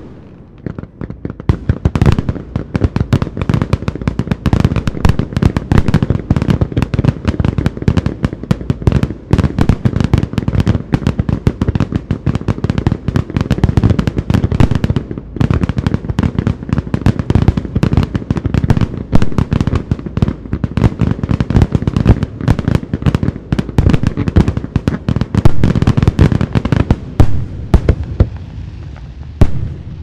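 Loud fireworks display: a dense, continuous barrage of cracking bangs, many per second, over deep low thuds. It thins out to scattered cracks near the end.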